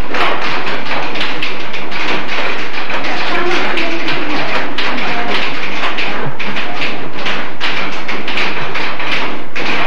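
Many typewriters clattering at once: a dense, irregular run of key strikes from a room full of students typing.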